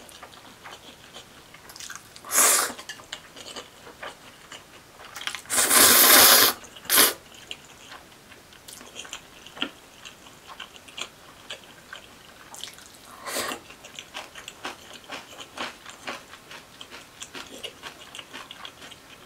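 Close-up eating sounds: spicy cold bibimmyeon noodles and beef brisket being slurped and chewed. There are four loud slurps, the longest and loudest about six seconds in, with soft wet chewing clicks between them.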